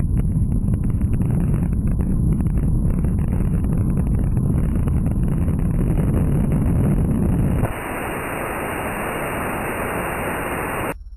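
Wind rumbling and buffeting over the onboard camera's microphone of a PET-bottle rocket in flight, with crackling clicks. About eight seconds in, it changes abruptly to a steady hiss of radio static as the onboard camera's signal is lost. The hiss cuts off sharply near the end.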